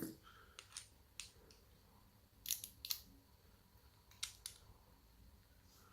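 A few faint, sharp clicks of small metal parts as a pin is worked out of the chamber of a Ruko Oval euro cylinder lock, with a clearer pair about two and a half seconds in and another pair about four seconds in.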